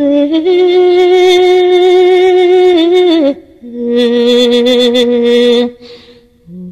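A woman's voice singing an Albanian lament (kënge vaji) in two long held notes with vibrato, the second lower than the first, with a short break between them.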